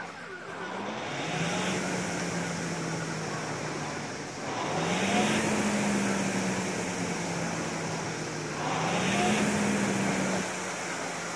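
Indoor rowing machine's flywheel whirring under slow strokes: three times, about every four seconds, the hum and the rush of air jump up in pitch and loudness as the handle is pulled, then slowly wind down while the rower slides forward.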